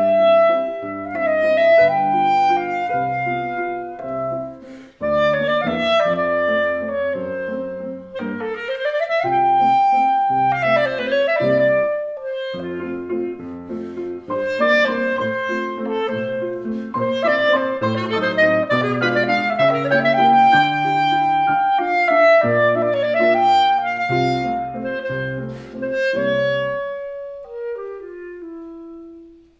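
Clarinet and grand piano playing a classical duet, the clarinet carrying the melody with slides in pitch over piano chords. Near the end the piano drops out and the clarinet slides down alone to a lower note and fades away.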